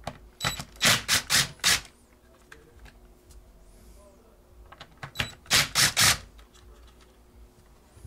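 Cordless driver run in quick pulses, backing out T20 Torx screws from a steering wheel's trim bezel: a cluster of short bursts about half a second in and another about five seconds in.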